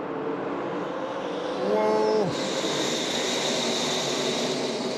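A pack of NASCAR Truck Series V8 race trucks running flat out together at a restart, a dense engine drone. About two seconds in, one truck passes close with its engine pitch dropping, and then the sound turns to a louder, steady, higher-pitched rush of the field going by.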